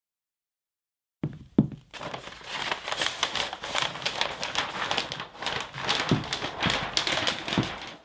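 Graphite scratching fast and hard across brown kraft paper: a dense, continuous scratching full of small clicks that starts suddenly about a second in, with a few dull knocks.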